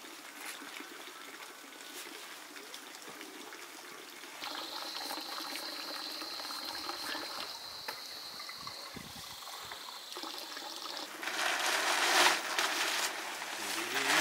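Water trickling and splashing as a man washes his head over a metal basin. It turns louder about four and a half seconds in, with a thin steady high whine over it, and the heaviest splashing comes near the end.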